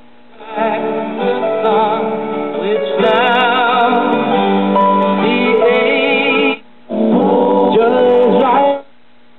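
Circa-1968 GE solid-state AM radio receiving a music station with singing. The station drops out briefly about two-thirds of the way through, and again near the end, leaving a low steady hum as the dial is turned between stations.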